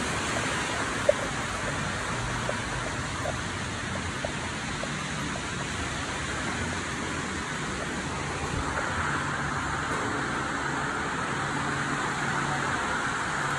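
Steady rushing and humming of model trains running on a layout, growing louder over the last few seconds as a train passes close. A single sharp click about a second in.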